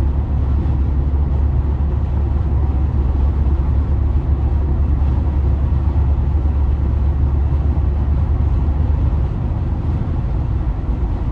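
Steady low rumble of road and engine noise inside a car cruising at freeway speed.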